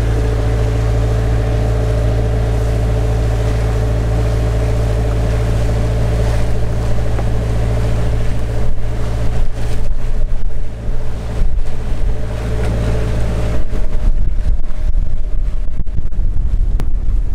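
A sailing yacht's engine running steadily as the boat motors along with its sails furled. Wind buffeting the microphone picks up about eight seconds in and is heaviest over the last few seconds.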